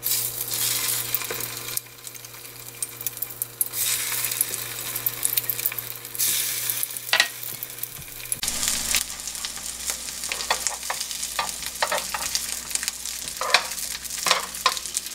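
Egg-dipped skewers of crab stick, ham and green vegetables sizzling as they fry in a nonstick frying pan. Near the end come a few sharp clicks as a spoon and spatula work among the pieces.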